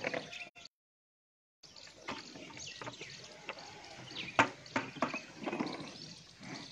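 Water buffalo being milked by hand: jets of milk squirting into a pail in short spurts. The sound drops out completely for about a second near the start.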